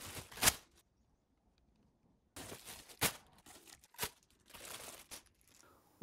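Clear plastic wrapping crinkling as a plastic fan guard is handled out of its box, with a few sharp knocks of plastic parts.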